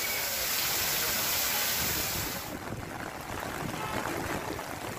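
Heavy rain pouring down, a dense hiss of falling water. About halfway through it cuts to a quieter, duller rain sound.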